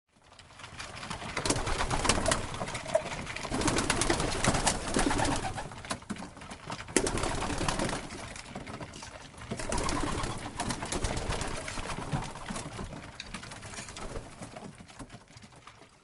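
A bird's wings flapping as it takes off, several swells of rapid fluttering wingbeats that fade out near the end.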